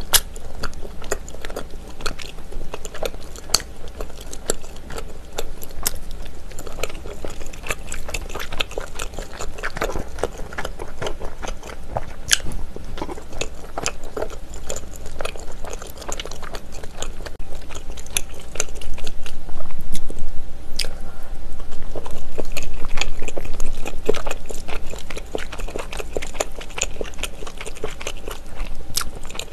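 Close-miked chewing and biting of tteokbokki, chewy rice cakes in thick spicy red sauce, with wet mouth clicks throughout; the chewing gets louder for several seconds past the middle.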